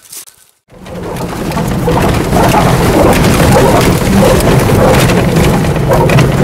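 Vehicle driving over a rough, stony dirt track, heard from inside the cab: a loud, steady rumble of engine and tyres with many small knocks and rattles. It starts abruptly after a brief silence under a second in.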